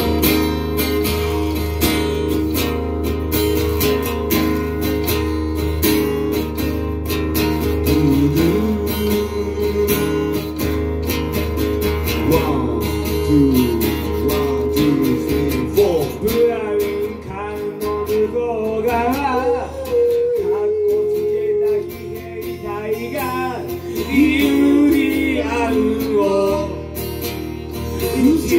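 Acoustic guitar strummed in steady chords, with a man singing over it from about halfway through.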